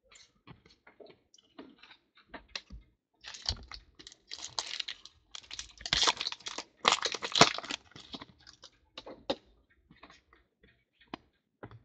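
Foil wrapper of a 2014 Panini Certified football card pack being torn open and crinkled in the hands, heard as a run of small crackles and snaps that is densest through the middle, followed by the light clicks of cards being handled.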